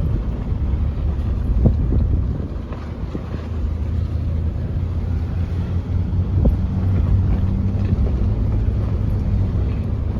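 Vehicle driving along a road: a steady low engine and road drone, with wind buffeting the microphone.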